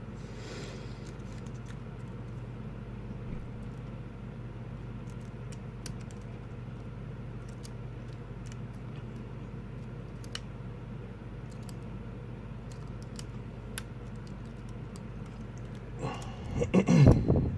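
Faint, scattered clicks of a lock pick working the seven pin tumblers of a padlock cylinder, over a steady low hum. Near the end a louder sound of about a second, with a wavering low pitch, stands out.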